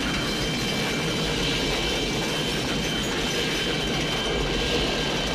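Steady, loud rushing mechanical roar with a thin high tone running through it, used as the sound of the rocket speeding along.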